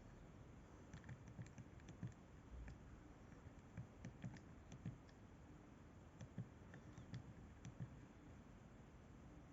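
Faint, irregular clicks of a mobile phone's keypad buttons being pressed, over near-silent room tone.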